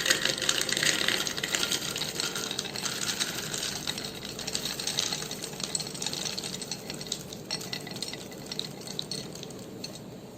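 Dry pantry food poured into a storage container: a dense patter of many small hard pieces, loudest at the start and thinning out toward the end.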